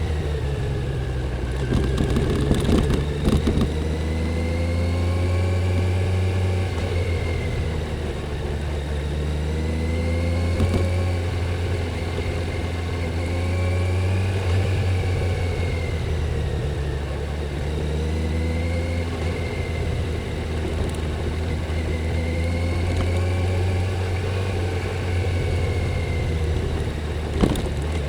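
Stock Kawasaki Z900's inline-four engine running on the road, its pitch rising and falling gently as the throttle is eased on and off. A few sharp clicks come about two to three seconds in, and one comes near the end.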